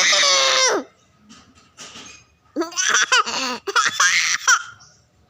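A young child imitates a lion's roar with one long, held, high-pitched shout that ends just under a second in. About halfway through come bursts of laughter.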